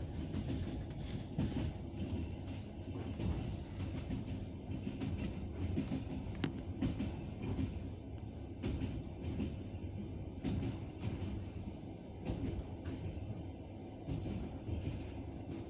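Passenger train running, heard from inside the carriage: a steady low rumble with the wheels knocking over rail joints and points at irregular intervals.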